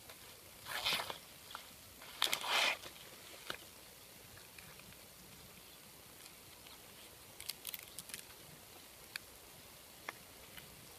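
Banana leaves rustling and crinkling as they are handled and folded by hand. There are two louder rustles in the first three seconds, then scattered light clicks and snaps.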